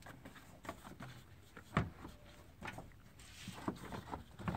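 Plastic air box and air bridge intake assembly being set back onto the engine and pressed into place: a few faint plastic knocks and rustles, the clearest about two seconds in.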